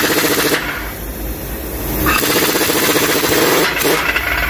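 Tractor's diesel engine running close by: a steady rattling drone that dips briefly about a second in.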